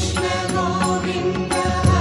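Devotional Krishna bhajan music: sustained instrumental tones over a steady beat.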